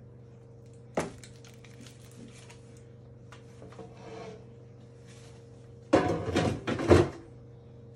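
A glass baking dish being handled out of an air fryer and onto a kitchen worktop: a sharp clack about a second in, small knocks, then two loud scraping clatters near the end, over a low steady hum.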